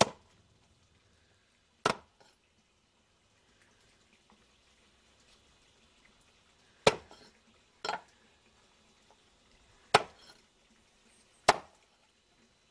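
Meat cleaver chopping through rabbit carcasses on a wooden board, cutting off heads and legs: about six sharp chops at irregular intervals, with quiet between them.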